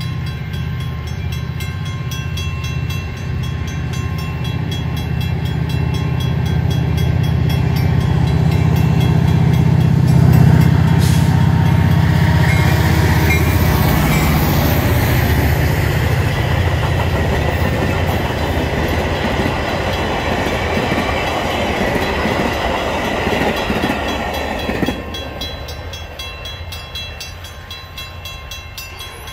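Metra commuter train passing a grade crossing. The diesel locomotive's engine comes first, loudest about ten seconds in, followed by the rattling rumble of the passenger coaches' wheels on the rails, which drops off sharply about 25 seconds in as the last car clears. Steady crossing-signal bell tones ring underneath.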